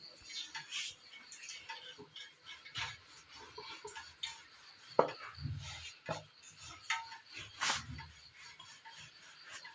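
Rolling pin working a ball of puri dough on a board: scattered light knocks and clatters, with two heavier knocks and thuds about five seconds and nearly eight seconds in.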